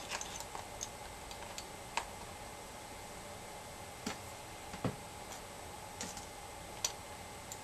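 Seashells clicking and tapping against one another as they are handled and pressed into place on a canvas: a few scattered, light, sharp clicks at irregular intervals.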